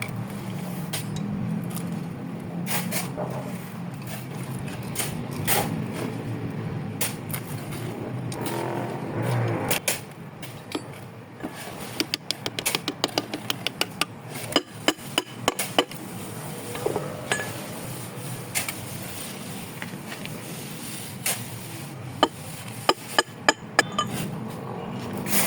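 Hand tools clinking and tapping on metal engine parts, with a quick run of sharp clicks in the middle and another cluster near the end, over a low steady rumble.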